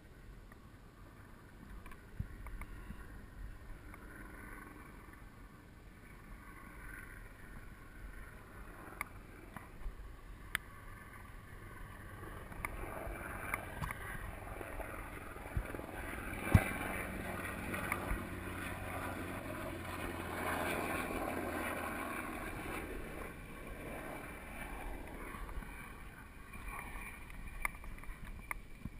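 GT Peace 9'r steel hardtail mountain bike riding over a rocky dirt singletrack: tyres running on dirt and gravel with the bike rattling and frequent sharp knocks over rocks, one much harder knock a little past halfway. The ride gets louder through the middle stretch.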